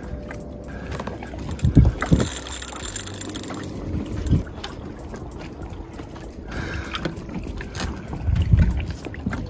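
Water splashing and knocking as a carp is drawn into a landing net beside an inflatable boat, with a few heavy thumps and wind gusting over the microphone.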